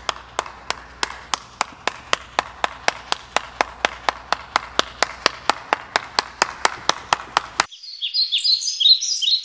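Evenly spaced sharp clicks, about three and a half a second, over a faint low hum, stopping suddenly near the end. High, quick chirps follow, like birdsong.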